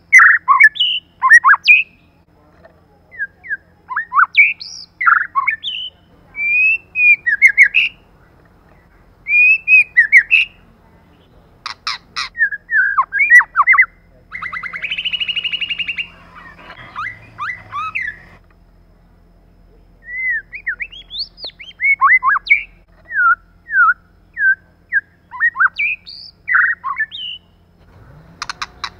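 White-rumped shama singing in short, varied phrases of whistled notes and chirps, with pauses between them, and a harsh buzzy churr in the middle.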